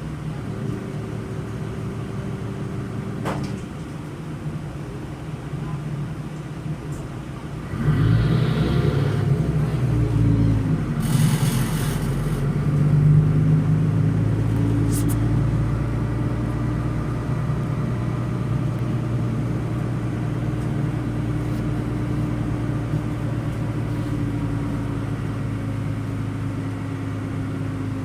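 Solaris Urbino 12 LE Ü city bus with a DAF turbocharged inline six-cylinder diesel and ZF Ecolife automatic gearbox, heard on board. It idles, then about eight seconds in the engine picks up with rising tones as the bus accelerates. A short hiss of air comes a few seconds later, then a steady drone. The engine shakes the bus hard enough to set cabin fittings vibrating.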